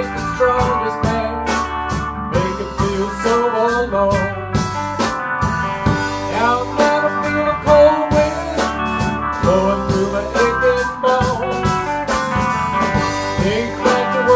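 Blues-rock band music with electric lead guitar over bass and drums, an instrumental passage with no singing.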